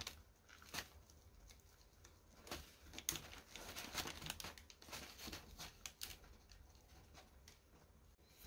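Faint handling noises from a Reebok Pump sneaker being pumped up by hand: scattered soft clicks and light rustles as the pump ball on the tongue is pressed and the shoe shifts against tissue paper. No air hiss is audible.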